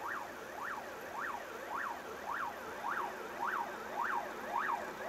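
Ambulance siren wailing: a fast, even rise and fall of pitch, just under two sweeps a second.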